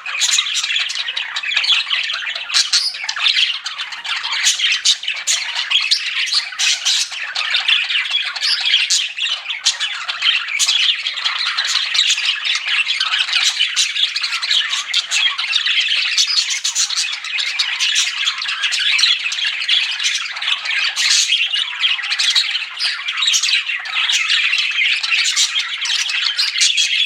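Pet budgerigars (budgies) chattering and chirping without a break, many short calls overlapping at once.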